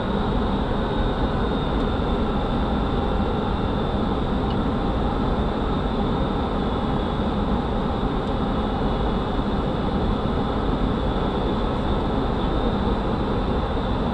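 Steady flight-deck noise of an Airbus A300-600 in descent: a constant rush of airflow and engine noise. A thin, high, steady tone runs through it.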